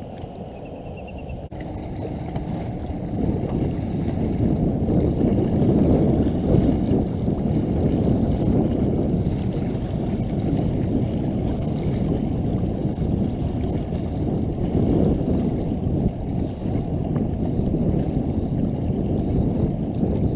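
Wind buffeting the camera microphone: a steady, deep rushing rumble with no high end, growing louder over the first few seconds.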